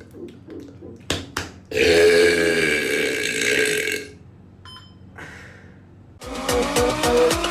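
A long, loud human burp lasting about two seconds, preceded by two short sharp sounds. Music starts about six seconds in.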